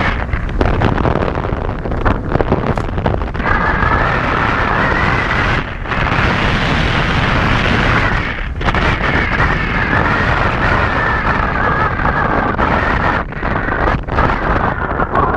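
Airflow rushing over the microphone of a camera mounted on a Falcon 4 hang glider in flight, a heavy steady wind roar. Over it runs a high whistle that is faint at first, then strong, with a brief dropout about halfway through.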